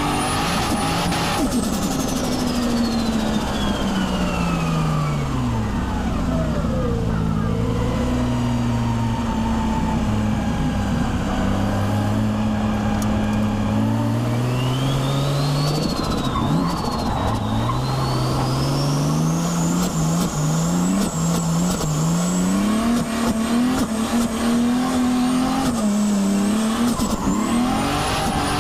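Nissan Skyline R33's turbocharged RB25DET straight-six driving, its note falling away after a pull near the start, settling low, then climbing again through the revs twice. A high turbo whistle falls and rises with it. At the high-rev moments near the start and near the end comes a rasping crackle, the screamer pipe and turbo flutter of a setup with no blow-off valve.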